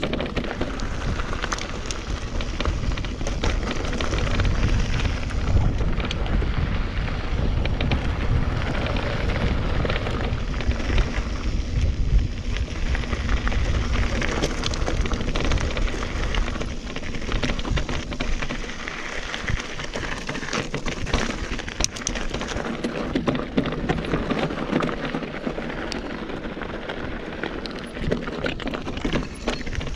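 Mountain bike rolling fast down a rocky, gravelly trail: tyres crunching over loose stones, with constant clicks and rattles from the bike and a low rumble, heavier in the first half, of wind on the body-mounted camera's microphone.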